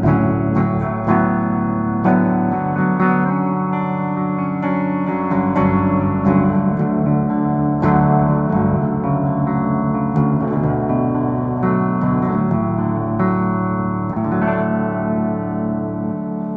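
Gibson SG electric guitar played clean, without the pedal, through a 1973 Fender Super Reverb amp with a little reverb: a passage of chords and single notes, each one struck and left ringing.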